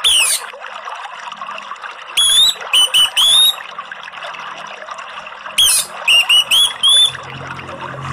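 Orange-headed thrush (anis merah) singing over a steady rush of flowing water. It gives a single falling note at the start, then two bursts of four or five short rising whistled notes about three seconds apart.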